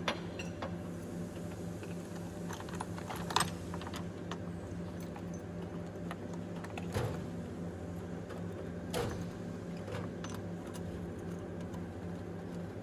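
Scattered light clicks and clinks, a few seconds apart, over a steady machine hum.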